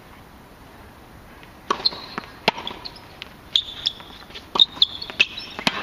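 Sharp, irregular taps of a tennis ball bouncing and being hit on a wet hard court, mixed with short high squeaks of tennis shoes on the damp surface. These start after a quiet first second and a half.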